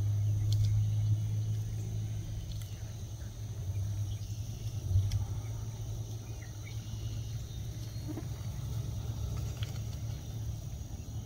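Low, steady hum of an idling or slow-moving vehicle engine, loudest over the first few seconds and easing off later, over a thin, steady high whine and a few faint ticks.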